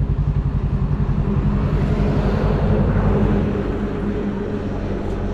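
Motorcycle engine idling at low revs with a steady, pulsing beat that eases slightly about three and a half seconds in.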